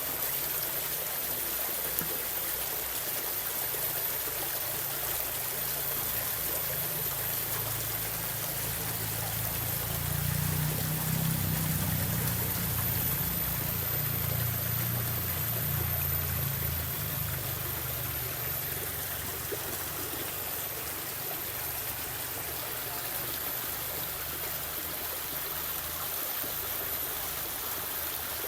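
River stream flowing steadily, an even rush of running water. A low rumble swells in underneath about nine seconds in and fades out by about eighteen seconds.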